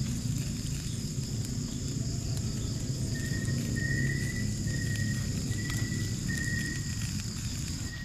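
Woodland night-and-day ambience: insects shrilling steadily at a high pitch over a low steady rumble, with a run of five short high whistled notes from about three seconds in to near the end.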